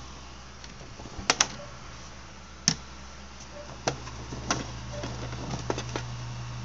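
Scattered sharp plastic clicks and taps from a monitor cable and computer equipment being handled, about eight in all with a close pair a little over a second in, over a steady low hum.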